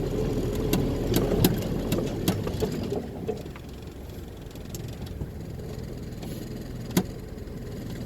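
Land Rover Series II's 2.25-litre four-cylinder petrol engine running under load in low-range four-wheel drive, with clicks and rattles. After about three seconds it drops to a quieter steady idle, and there is a single sharp knock near the end.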